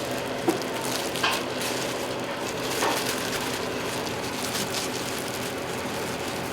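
Food frying with a steady sizzle, with a few light knocks of utensils against the pan.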